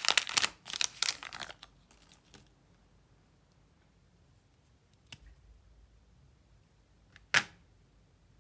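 Foil wrapper of a Lindt chocolate bar crinkling and tearing as it is peeled off, fading out within the first two seconds or so. After a quiet stretch, a single sharp snap near the end as a piece of the chocolate bar is broken off.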